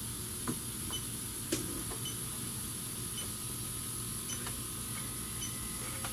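Electronic refrigerant leak detector beeping faintly and evenly, about once a second, over a steady hiss, with a couple of light handling clicks in the first two seconds.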